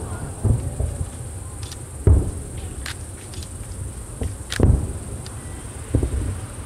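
Distant aerial fireworks shells bursting, heard as deep, dull booms about four times, over a steady high trill of insects such as crickets.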